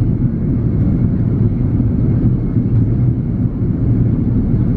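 Steady low drone inside the cabin of an Airbus A330-300 in flight: airflow and its two Pratt & Whitney PW4168A engines, during the descent.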